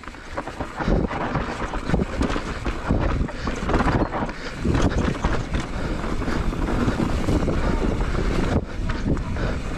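Wind buffeting an action camera's microphone as a mountain bike rolls fast down a dirt forest trail, with tyre noise and a steady run of short rattles and knocks from the bike over the rough ground.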